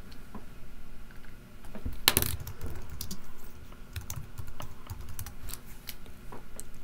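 Typing on a computer keyboard: irregular keystroke clicks while naming materials in the software, with one louder knock about two seconds in.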